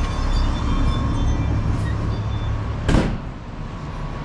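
A garage's metal entry door bangs shut once, sharply, about three seconds in, over a steady low engine rumble.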